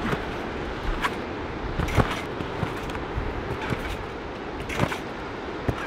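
A large, rain-wet rectangular trampoline mat thudding as a person bounces and flips on it, about once a second, over a steady hiss of rain.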